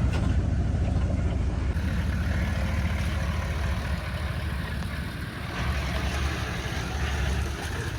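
Four-wheel-drive vehicle engine running at low revs, a steady low hum that dips briefly about five seconds in.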